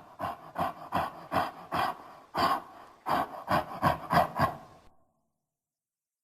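Designed gorilla creature vocalization: a run of about eleven short, breathy pulses, two or three a second, that stops about five seconds in.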